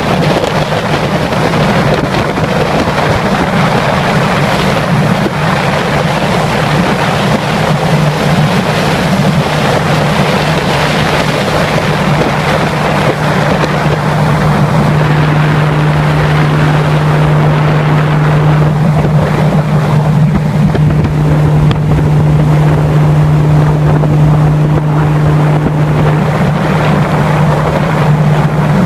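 Boat motor running steadily at speed, a constant low hum that settles into an even pitch about halfway through, with wind rushing over the microphone and water noise.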